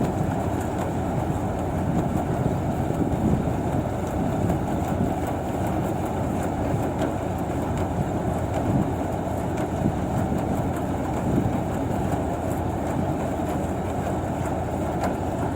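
Combine harvester's engine and machinery running steadily, a constant dense mechanical noise.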